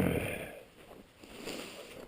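Footsteps crunching on icy, crusted snow: one heavy step at the start and a lighter one about a second and a half in.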